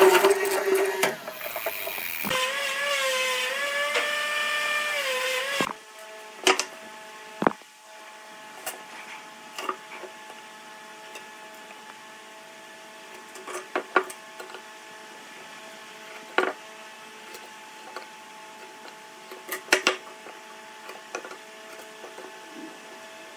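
A power tool's motor runs with a steady pitched tone that dips and rises as it works, then cuts off suddenly about six seconds in. After that a faint steady machine hum continues, with scattered knocks and clicks.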